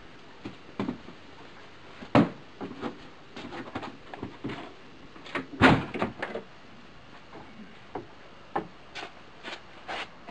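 Irregular knocks and clicks, with a loud knock about two seconds in and the loudest cluster a little past halfway.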